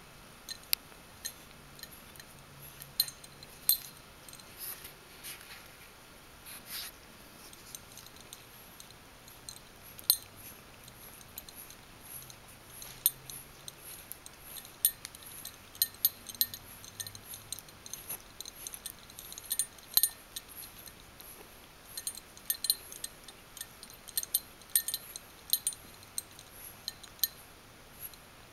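Small metal ID tag on a cat's collar clinking, with light irregular clicks, several a second at times, as the cat grooms herself.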